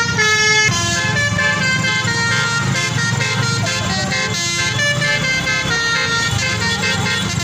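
Bus telolet horn playing a melody of held notes that change every half second or so, over the steady low sound of the bus.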